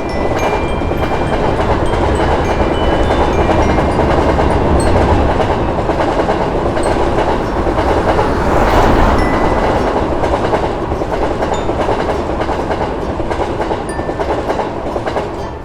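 A train passing over a level crossing, its cars running along the rails in a steady, loud rumble.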